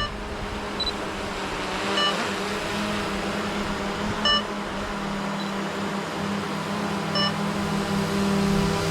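Camera drone's propellers humming steadily as it hovers low to land, with three short beeps about two, four and seven seconds in: the obstacle sensors warning of a nearby tree.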